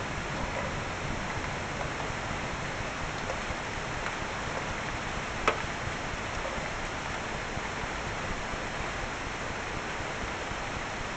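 Steady rain falling, an even hiss, with one sharp tick about halfway through.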